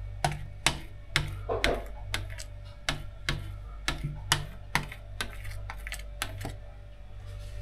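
A steady run of sharp light clicks and taps, roughly two a second, from a plastic squeegee being worked over window tint film on glass to push out the bubbles, over a low steady hum.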